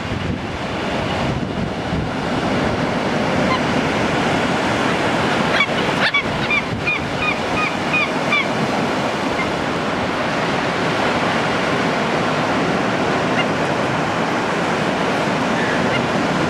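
Surf breaking steadily on a beach. About five to eight seconds in, a bird gives a quick run of about seven short, high calls.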